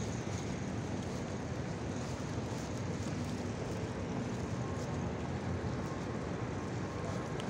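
Steady hum of city road traffic, an even wash of noise with no single vehicle standing out.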